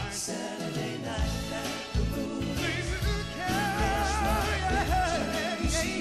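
Soul vocal group singing over backing music. About halfway through, a lead voice holds a long note with vibrato.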